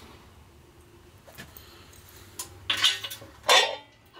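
A few short metallic clanks and rattles, the loudest about three and a half seconds in, from an engine stand as a Ford 172 diesel engine on it is turned onto its side.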